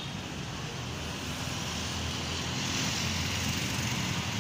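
Street traffic: engine hum and tyre noise from passing motorcycles and cars, growing louder in the second half as a van drives past close by.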